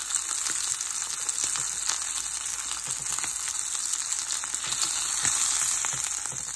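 Pork chops searing in hot oil in a cast-iron skillet: a steady sizzle with scattered crackling pops, swelling a little about five seconds in.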